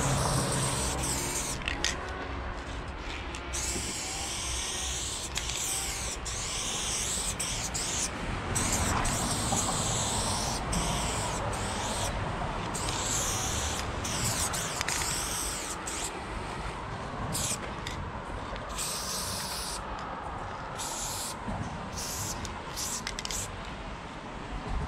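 Aerosol spray paint can fitted with a Montana Level 6 fat cap, spraying in a run of hissing bursts, some long strokes and some short, quicker ones toward the end. A steady low rumble sits underneath.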